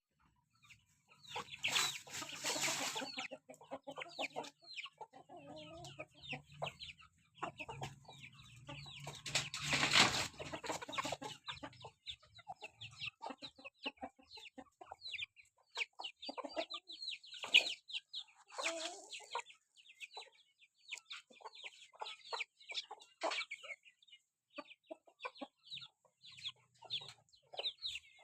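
Chickens clucking, with many short, high calls throughout and two louder, noisier stretches about two and ten seconds in.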